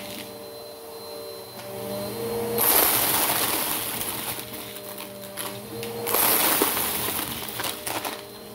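Bissell Power Force Helix upright vacuum cleaner running with a steady motor hum. Twice, about two and a half seconds in and again about six seconds in, it swells into a louder rushing noise lasting a second or two.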